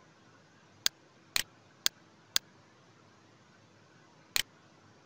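Computer mouse clicking five times as on-screen pen markings are erased: four sharp clicks about half a second apart, then one more about two seconds later, over faint room hiss.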